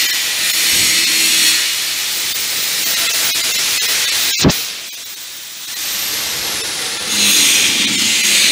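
Loud steady hiss of compressed air from the air-powered jack system of a car frame-straightening bench. A sharp click about four and a half seconds in cuts the hiss off, and it starts again about three seconds later.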